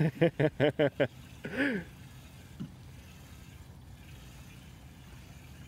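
A man's voice in about six short, quick bursts during the first second, then one more brief vocal sound. After that there is only a faint, steady background hush.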